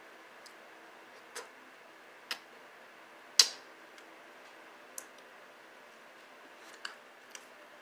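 Eating ice cream: a handful of light, irregular clicks and taps, one louder than the rest about a third of the way in, over a faint steady hum.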